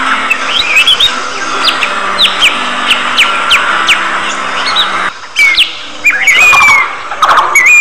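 Budgerigars chirping: short, sharp chirps repeated about twice a second, turning louder and busier, with raspy calls mixed in, after about five seconds.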